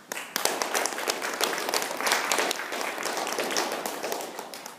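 Audience applauding, breaking out right away and dying down near the end.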